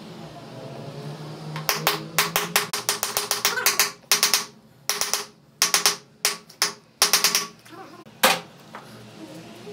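A hammer tapping a round part into an Audi transmission case: many quick, sharp taps in irregular runs, then a single tap near the end.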